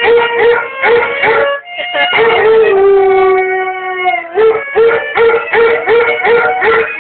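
A beagle-type dog howling along to a cello. There are quick repeated pitched notes, then one long held tone of about two seconds in the middle that drops slightly at its end, then quick notes again.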